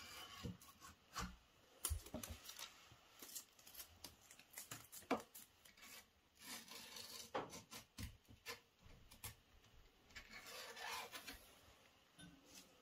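Hands fitting a mesh grease filter panel with hook-and-loop strips into a cabinet range hood: scattered light knocks and clicks with rubbing, and two longer rasping scrapes about six and ten seconds in.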